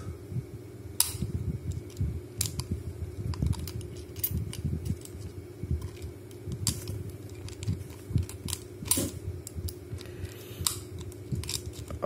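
Irregular small metal clicks and taps from handling an open dial combination padlock with a thin metal pick, over low rubbing and handling noise.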